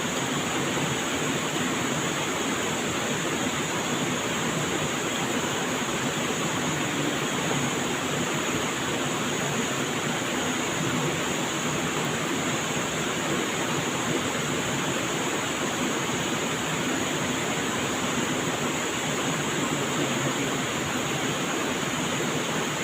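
Flowing water rushing steadily, an even noise that does not change or break.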